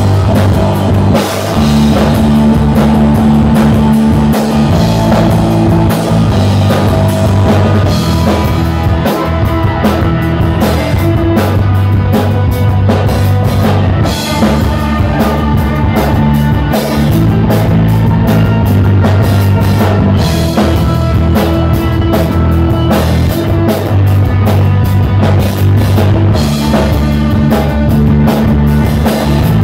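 Live rock band playing without vocals: electric guitar, bass guitar and drum kit, loud throughout.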